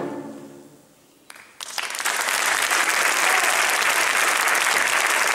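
A choir's final chord fades away, and after a moment of near silence a few claps start and the audience breaks into steady applause.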